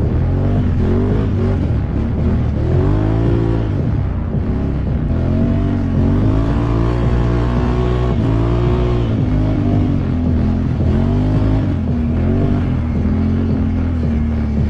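Can-Am Renegade 1000 ATV's V-twin engine revving up and down over and over as it is ridden, its pitch rising and falling every second or two.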